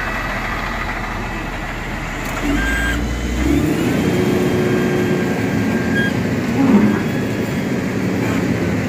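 LiuGong motor grader's diesel engine running, with a thin steady whine over it. It gets a little louder about two and a half seconds in.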